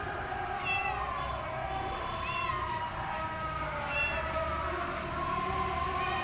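Domestic cat meowing loudly several times, each call a short rising-then-falling cry.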